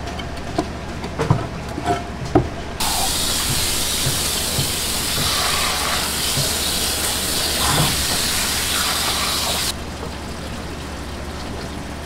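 A few sharp knocks, then a pressurised water jet from a hose hisses steadily onto a gutted mullet on the cutting board, rinsing off the blood. The spray starts abruptly about three seconds in and cuts off about seven seconds later.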